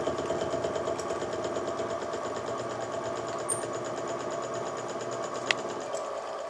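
Sieg SX2P mini mill running with a fly cutter taking a facing pass across the metal frame part: a steady motor hum with the fast, even rhythm of the cutter's single tool striking the work.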